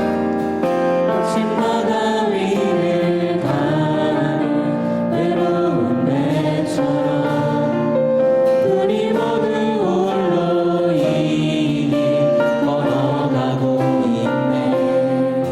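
A group of voices singing a Korean worship song together in unison, sustained phrases with a musical backing.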